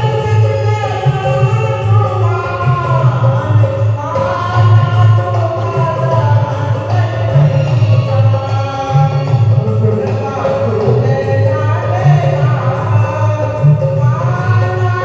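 Hindu devotional bhajan: singing voices over a steady musical accompaniment.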